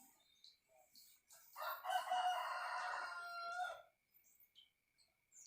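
A rooster crowing once, one long call of about two seconds.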